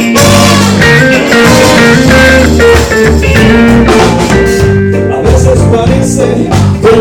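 A band playing an instrumental passage: electric guitar, bass and drum kit.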